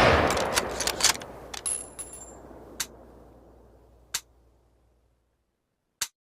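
Remington Model 700 bolt-action rifle: the echo of a shot dies away over about four seconds, overlaid by a run of sharp metallic clicks as the bolt is worked. One more sharp click comes near the end.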